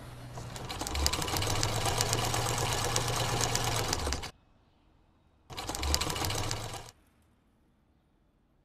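Sewing machines stitching: a fast rattle of needle strokes with a low motor hum. It runs for about three seconds, stops, then comes back for a shorter run of about a second and a half.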